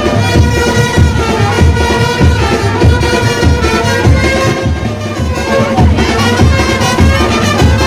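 Loud music: a sustained melody over a heavy, steady drum beat.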